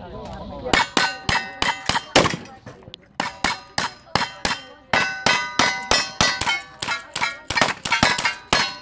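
Rapid gunfire, several shots a second after a short pause at the start, with steel plate targets ringing as they are hit.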